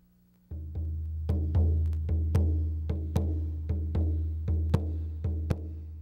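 TV programme opening theme music: repeated drum beats over a low sustained bass, starting about half a second in.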